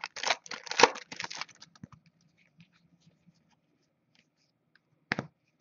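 Foil trading-card pack wrapper crinkling as it is handled with cards: a quick flurry of rustles in the first second and a half, then only faint scattered ticks, and one short rustle near the end.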